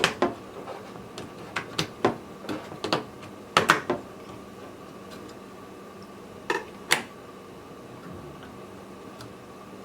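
Plastic clicks of motherboard RAM slot retention clips being pushed open and memory modules pulled out: about a dozen sharp clicks, some in quick pairs, over the first seven seconds.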